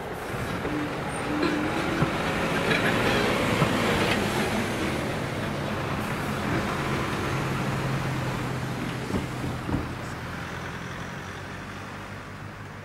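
A bus and then a car drive across a level crossing: engine and tyre noise swelling to a peak a few seconds in and then slowly fading, with a few short knocks along the way.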